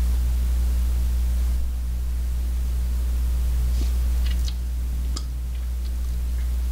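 Steady low hum with an even hiss underneath, with a few faint small clicks about four to five seconds in.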